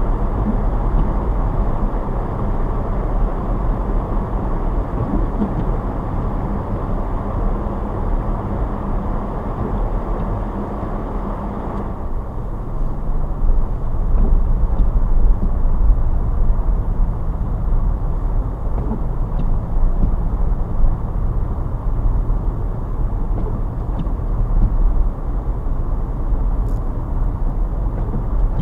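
A car on the move: steady road and engine rumble, mostly low in pitch. The higher hiss fades about twelve seconds in.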